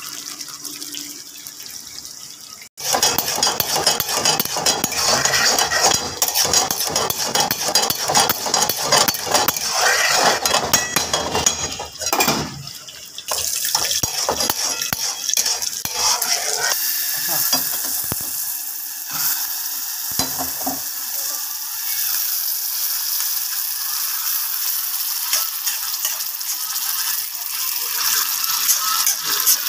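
Mutton in a thick white gravy sizzling in a hot karahi while a metal spoon stirs and scrapes the pan. The scraping is dense in the first half and gives way to a steady sizzle.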